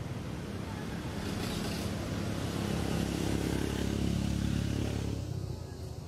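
A motor vehicle's engine passing by: a low hum that grows louder to a peak about three to four seconds in, then fades away about five seconds in.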